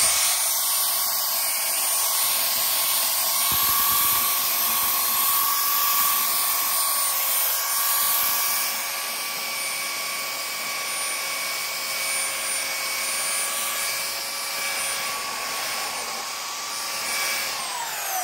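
Handheld electric belt sander running steadily with a high motor whine while sanding a chamfer along the edge of a wooden board. Near the end it is switched off and the whine falls in pitch as it spins down.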